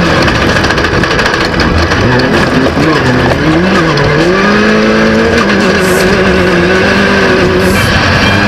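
Off-road race vehicle's engine running at speed, its pitch rising and falling a few times and then holding steady for a few seconds.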